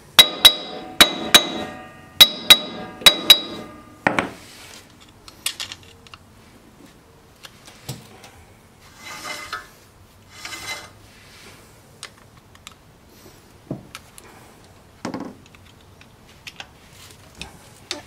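Steel screwdriver clinking against the slotted spanner nut and steel wheel hub of a forklift's front axle as the nut is worked around to wind it in and load the wheel bearings: a quick run of sharp, ringing metal clicks in the first few seconds, a dull knock, then softer rubbing and scraping with occasional ticks as the hub is handled.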